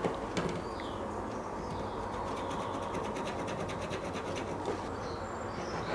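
Hacksaw blade cutting the metal tube of a roller blind, a steady run of short rapid strokes as the cut is started without a groove to guide the blade.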